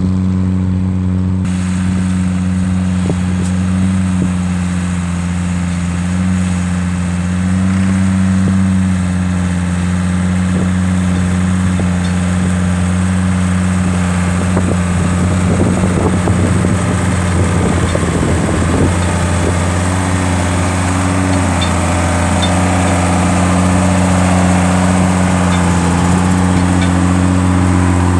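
An engine running steadily at a constant speed, with a rattling stretch about halfway through.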